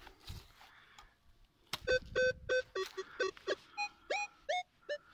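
Metal detector sounding about ten short beeps as its coil is swept over a freshly dug hole, the sign that it is picking up a metal target. Most beeps are on a steady mid tone, and the last few rise in pitch. A single knock comes just before the beeps.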